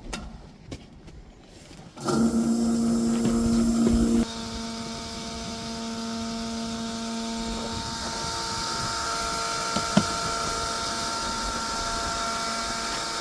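Electric fuel transfer pump on a diesel transfer tank switching on about two seconds in with a loud steady hum. The hum drops in level after a couple of seconds and runs on steadily with a hiss as the diesel flows, with a single sharp click near the end.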